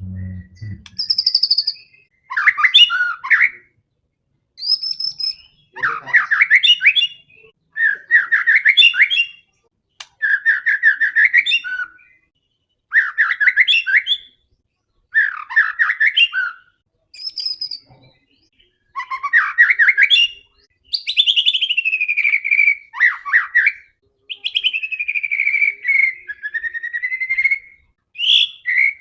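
White-rumped shama (murai batu) in full, vigorous song: loud, varied whistled phrases about a second long, separated by short pauses. It is the aggressive 'fighter' song kept as lure audio to provoke other shamas. In the last third the phrases stretch into longer, falling whistles.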